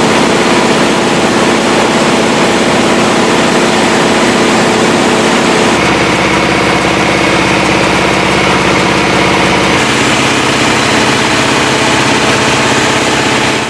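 Rice husk pulverizing mill running loud and steady, a machine drone over a rushing hiss; its tone shifts about six seconds in and again near ten seconds.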